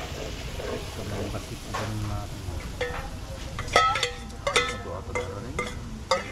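Pig's blood mixed with vinegar sizzling as it is poured into a hot pan of leftover frying oil. From about halfway on, a metal spatula scrapes and taps the rim of a stainless steel bowl, which rings with each of several strikes.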